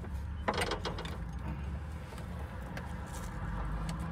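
Metal hand tools clicking and rattling in a tool bag as a pair of diagonal cutters is picked out, over a steady low rumble. The clicks come in a short cluster about half a second in and again near three seconds.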